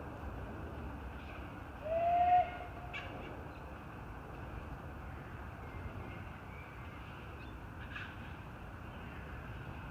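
Faint, steady outdoor background noise with a single short call-like tone about two seconds in, rising slightly and lasting about half a second, and a couple of faint clicks.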